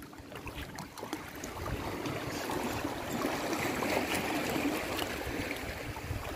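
Small waves washing and splashing among the rocks of a stone breakwater at high tide, building about a second in.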